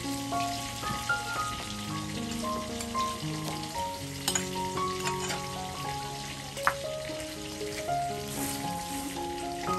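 Water in a large aluminium cooking pot boiling, with a steady bubbling hiss, under soft melodic background music. About four seconds in there is a sharp sound as sliced chili, galangal and garlic are tipped into the pot.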